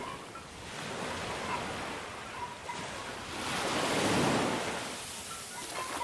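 Sea surf: waves washing in, one wave swelling to a peak about four seconds in and then fading.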